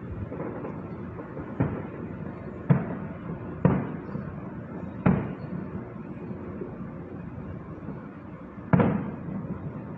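Distant aerial fireworks shells bursting: five separate booms, each trailing off briefly, with the loudest near the end, over a steady background hiss.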